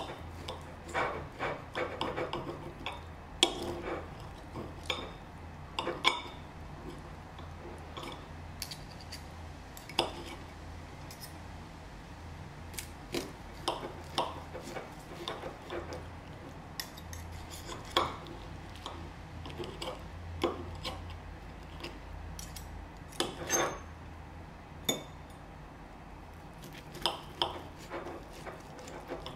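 Steel knife and fork clicking and scraping against a ceramic plate while slicing through a seared ribeye steak, in irregular short strokes.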